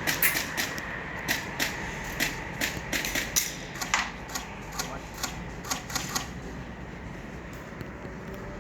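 Airsoft guns firing: a string of sharp, irregular clacks, some close together, that stops about six seconds in.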